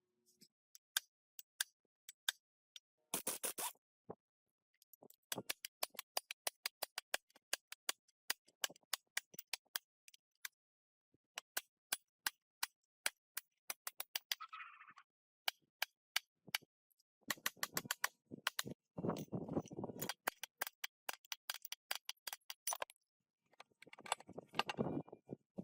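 Hand tools working on metal parts: a long series of sharp clicks and taps, with a few short bursts of scraping.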